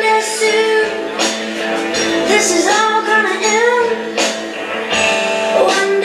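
A recorded song playing: a woman singing a bending melody over instrumental backing with regular beats.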